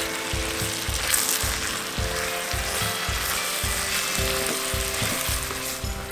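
Chillies and red bell peppers sizzling in a hot cast-iron pot, stirred and scraped with a wooden spoon as the sugar is mixed in.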